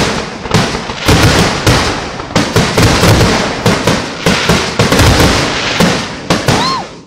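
Aerial fireworks shells launching and bursting in a rapid barrage, loud booms and crackles overlapping one after another. A short whistle rises and falls near the end.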